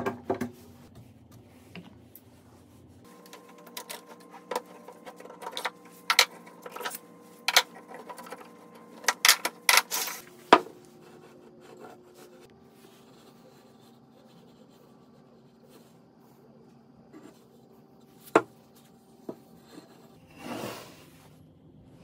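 Sharp clicks and knocks of metal screw bar clamps being loosened and taken off a glued wooden table-leg joint, with wooden parts knocking on a wooden workbench; most of them fall in a cluster in the first half. A single knock comes later, and a short soft rubbing sound follows near the end.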